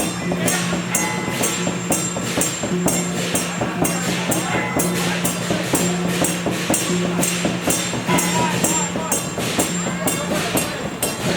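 Procession music: a steady beat of bright metallic percussion strikes, about three a second, over a sustained low melodic line.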